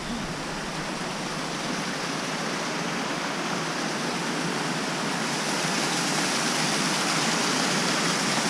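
Rushing water of the Cleddau River cascading through the Chasm, a steady rush of noise that grows gradually louder as it is approached.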